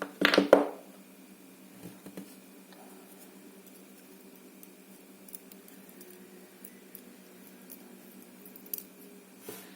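Small lock parts being handled as the last pin and spring come out of an ABUS 72/40 padlock's core: a short burst of clicking and scraping just after the start, then a few faint ticks, over a faint steady hum.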